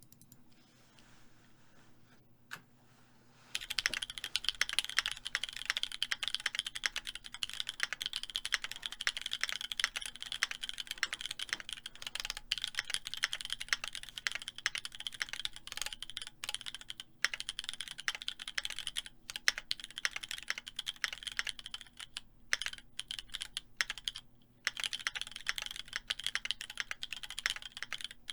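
Fast typing on a Keychron Q2 mechanical keyboard with SP Star Magical Girl tactile switches and PBT keycaps: a dense run of key clacks that starts about three seconds in, with a short break near the end.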